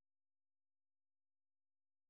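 Silence: a digitally silent pause with no sound at all.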